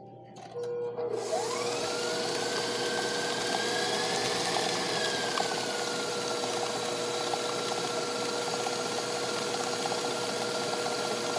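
Stand mixer switched on about a second in, its motor whine rising as it comes up to speed, then running steadily with the flat beater turning through thick creamed butter, sugar and egg cookie dough.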